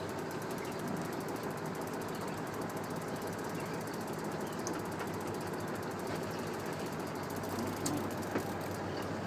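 Fishing reel clicking rapidly as line is worked on a hooked fish, over a steady low hum.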